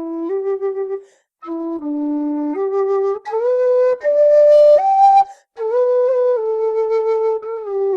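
Setanta metal low D whistle playing a melody of held notes, mostly in the low octave, with short breaths between phrases: one about a second in and another past the five-second mark.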